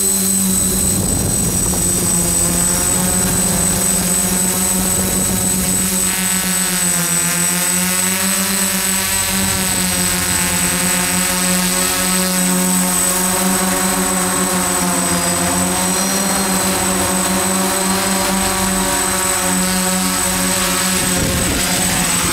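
DJI F-550 hexacopter's electric motors and Graupner e-props buzzing in flight, heard from the camera on board. The pitch of the buzz rises and falls with the throttle, over a thin, steady high whine.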